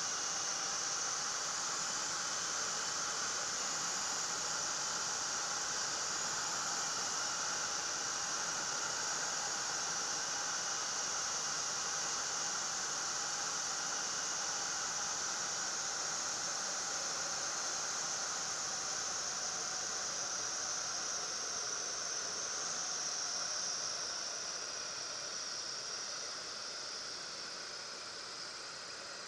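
Marquart Charger biplane heard from its open cockpit on the landing approach: a steady rush of slipstream and hiss with the engine's drone beneath it. It eases down over the last few seconds as the plane touches down and slows on the runway.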